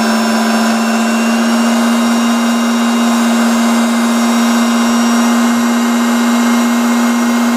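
Proxxon benchtop circular saw running freely with no cut, its motor and blade turning at a steady, even pitch. It is a new saw and runs quietly and smoothly.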